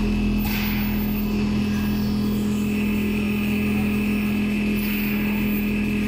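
Richpeace large-format automatic sewing machine with a rotary sewing head running as it stitches, a steady machine hum with one strong low tone. A brief rush of noise sounds about half a second in.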